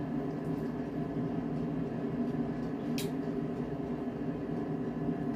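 Steady low hum of a running room appliance, with one brief click about three seconds in.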